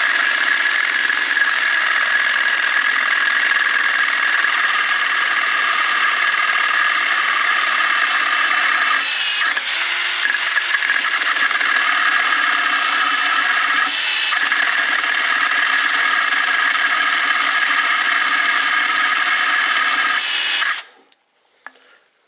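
19.2-volt cordless drill spinning an abrasive cut-off wheel and grinding through a zerk grease fitting held in locking pliers: a steady high whine over a grinding hiss. It dips briefly twice in the middle, then stops suddenly near the end.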